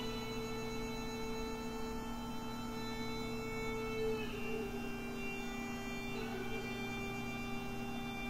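Slow music of long, steady held tones played back through a small spiral back-loaded horn speaker, the Uzu-10II with a Fostex FF105WK full-range driver; the held notes shift a few times, notably about four seconds in and again about six seconds in.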